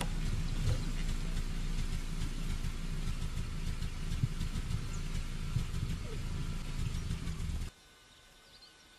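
Steady low rumble with a crackling hiss over it, which cuts off abruptly near the end.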